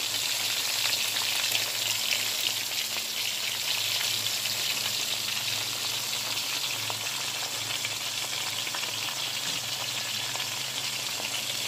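Whole pieces of seasoned mullet frying in hot oil in a pot: a steady crackling sizzle, with a low steady hum underneath.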